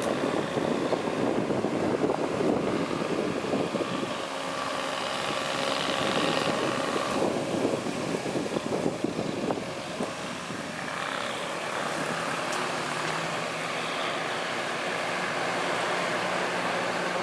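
Heavy diesel earthmoving machinery working: engine noise with clattering and rattling for the first ten seconds or so, then settling into a steadier engine drone with a low hum.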